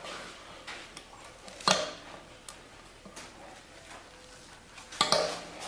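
Screwdriver prying at a U-joint retaining clip in a driveshaft yoke: light metal ticks and scrapes, with two louder short metallic clinks, one about a second and a half in and one near the end.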